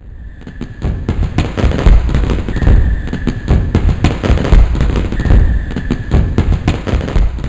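Fireworks crackling and popping densely over deep low thumps. A steady high tone comes in three times, about a second each.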